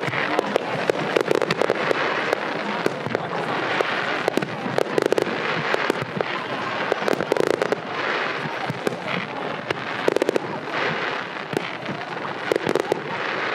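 Aerial fireworks display: a continuous run of sharp pops and bangs in quick succession, with no pause.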